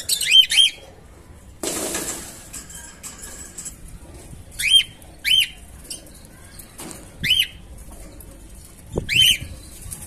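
Budgerigars chirping: short, sharp chirps that rise and fall, singly and in pairs, a few seconds apart. A short rustling burst comes about two seconds in.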